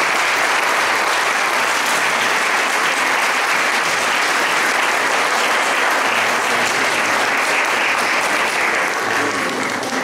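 Audience applauding: dense, steady clapping that eases a little near the end.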